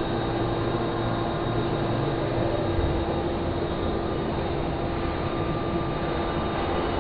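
Steady hum of a powered-up Femco HL25N CNC lathe with a constant low tone. The program is running in machine lock, so the slides are not moving and there is no cutting.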